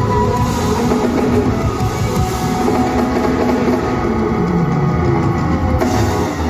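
Live rock band playing: drum kit beating under bass and electric guitar, with no singing.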